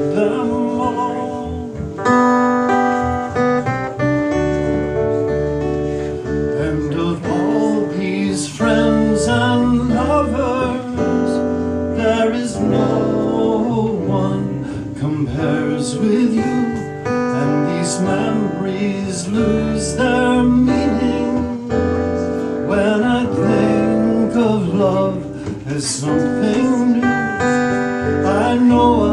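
Live acoustic guitar music: a strummed acoustic guitar with a second guitar, and singing over it.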